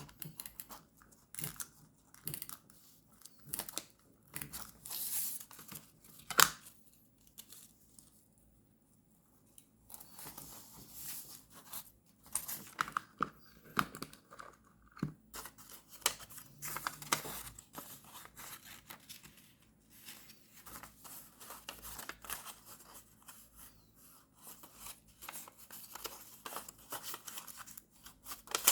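Paper being torn and handled for journal decorating: irregular bursts of tearing, crinkling and small rustles and taps, with a quiet pause about eight seconds in.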